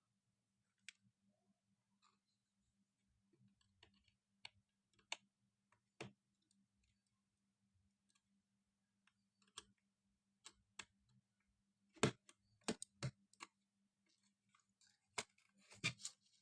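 Scattered light clicks and knocks of small hard objects being handled, a few at a time, with a quick cluster about twelve seconds in and another near the end, over a faint steady hum.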